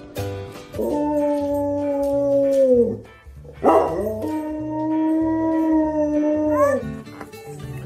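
A dog howling: two long, held howls, the first dropping in pitch as it ends, the second starting with a sharp rise and turning upward at its close.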